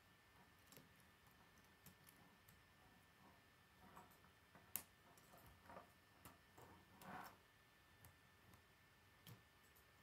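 Faint clicks and rattles of K'nex plastic rods and connectors being handled and snapped together, with one sharper click a little before the middle and a short rustling clatter shortly after.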